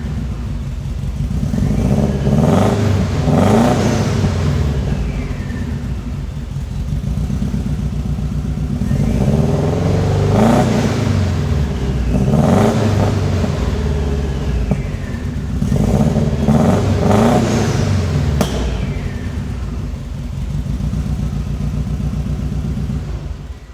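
Subaru STI turbocharged flat-four engine idling roughly and being revved in three bursts of quick throttle blips, with one sharp pop late on, then cutting off suddenly at the end. The engine is running with a bad injector.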